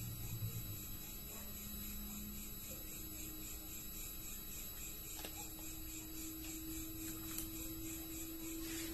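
Steady low electrical hum of a quiet room, with faint eating sounds: a few light clicks of a fork against a paper noodle cup in the middle and a short slurp of noodles near the end.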